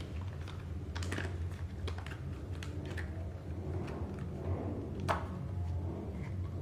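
Handling noise from a thin silicone remote-control sleeve being flexed and pulled open between the fingers: irregular light clicks and taps, the sharpest about five seconds in, over a steady low hum.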